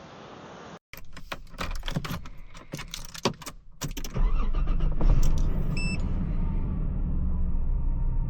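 Keys jangling and sharp clicks of a car being handled, then a steady low rumble that starts abruptly about four seconds in, with a short high electronic beep soon after.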